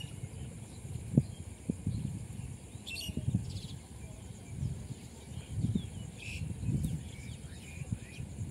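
Open-air ambience over a rice paddy: irregular low rumbles of wind on the microphone, a few faint bird chirps, and a steady high hiss.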